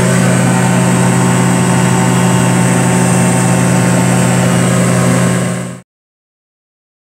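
Light aircraft's piston engine and propeller droning steadily at constant pitch, with rushing air, heard from inside the cockpit. The sound fades out about five and a half seconds in, leaving silence.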